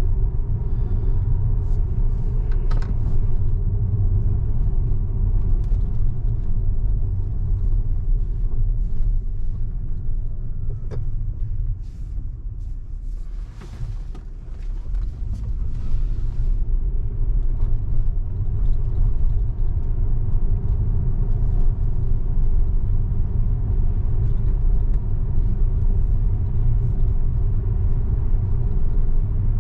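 Steady low road and tyre rumble heard inside the cabin of a Tesla electric car driving on city streets, with no engine note; it eases briefly about halfway through.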